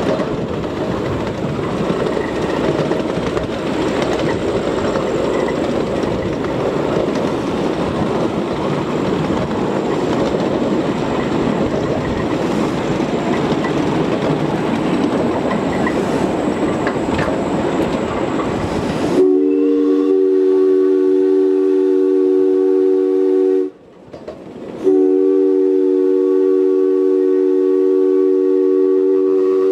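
Ride-on scale railway train rolling along its track with a steady rumble and clatter. About two-thirds of the way through, a multi-note chime whistle sounds a long blast, breaks off for about a second, then sounds a second long blast.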